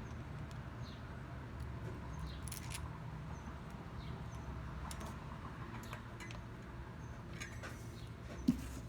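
Light scattered clicks and ticks of small parts being handled while a bicycle disc brake caliper is fitted, over a steady low hum, with one sharp knock near the end.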